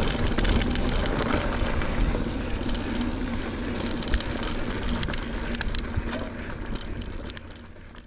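Pivot Switchblade mountain bike riding down a rocky dirt trail: tyre noise with the frame and chain rattling in many sharp clicks. The sound fades out over the last two seconds.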